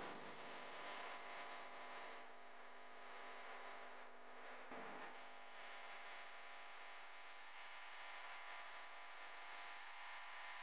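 Faint, steady hum made of several held tones, with nothing sudden in it.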